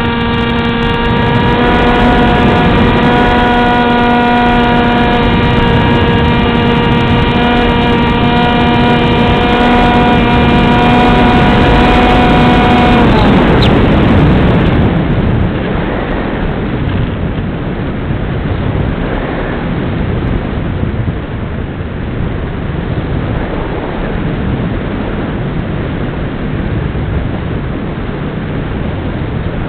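Model aircraft's motor and propeller running with a steady whine, heard through the onboard camera's microphone; about thirteen seconds in it winds down and stops. From then on only wind rushing over the airframe as it glides.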